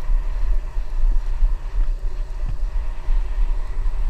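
Wind buffeting the microphone of a GoPro on a moving bicycle: a low rumble that keeps rising and falling.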